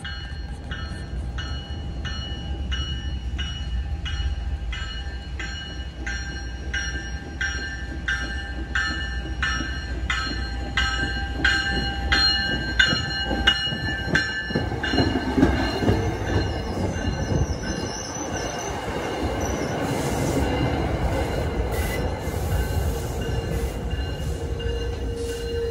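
MBTA commuter rail train approaching and running past along the platform. For the first half a warning bell rings about twice a second; then the coaches' wheels rumble and clack past, with a steady wheel squeal near the end.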